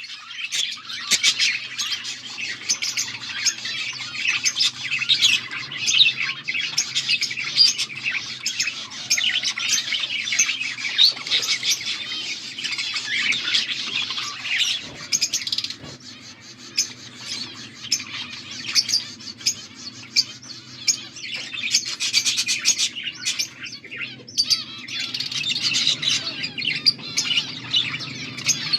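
Budgerigars chirping continuously, with many quick overlapping calls and a few squawks. The chirping thins out for a few seconds past the middle, then picks up again. A steady low hum runs underneath.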